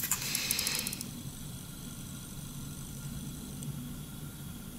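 A small cardboard box is handled and turned over in the hands, with a short rustle and a few light clicks in the first second. After that, only a steady low hum remains in the background.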